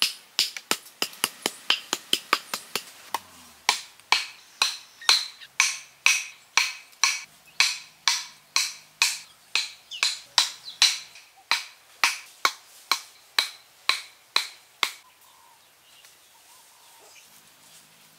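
Wooden stakes being hammered into the ground with a wooden stick: a steady run of sharp wood-on-wood knocks, about two a second, that stops about fifteen seconds in.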